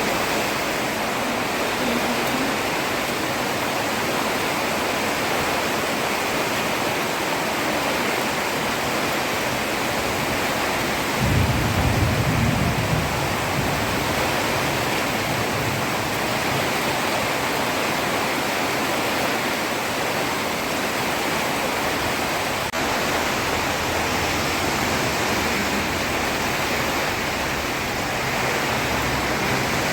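Heavy rain falling steadily on a road, an even hiss. About eleven seconds in, a brief low rumble rises over it for a couple of seconds.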